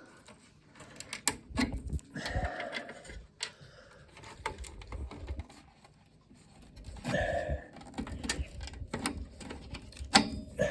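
Wiring harness connectors being unplugged from a TV power supply board: scattered sharp plastic clicks and knocks, with short rustling and scraping from handling the cables.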